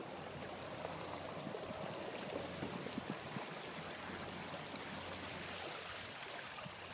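Water rushing and splashing along the hull of a moving tugboat, over the steady low drone of its engine.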